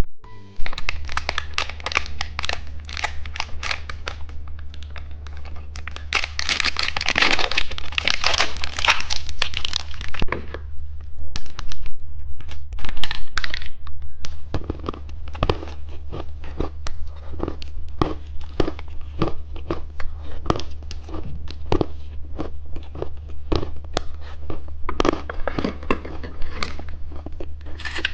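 Plastic candy packaging crinkling and tearing as it is opened, with many small irregular clicks and taps, densest about a quarter of the way in. A steady low hum runs underneath.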